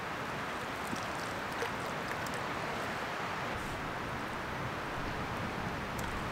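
Steady wind and lake water lapping at the bank, with a few faint ticks.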